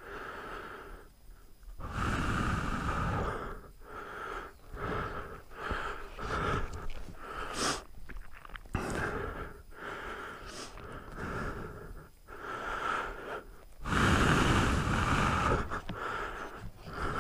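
Heavy, irregular breathing of a motorcycle rider picked up by a helmet intercom microphone, cutting in and out with short gaps. There are louder rushes of noise about two seconds in and again near the end.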